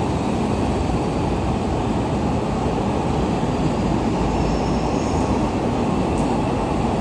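Electric commuter train running on the rails: a steady rumble of wheels and running gear that holds an even level throughout.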